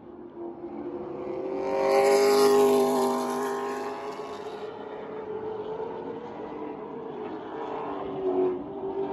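Two outlaw late model race cars' V8 engines running together, swelling to their loudest as they pass close by about two seconds in, then easing off as they carry on around the track.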